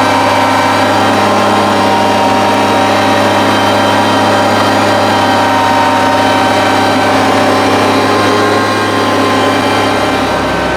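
Kubota compact tractor's diesel engine running steadily under load, driving a front-mounted snowblower through deep snow. The low engine note shifts near the end.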